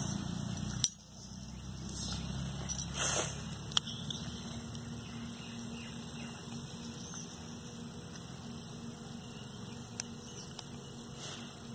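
A steel spoon and small steel containers clinking and scraping a few times while food is served: a sharp clink about a second in, a short scrape around three seconds, and a faint tap near the end. A steady low motor-like hum runs underneath.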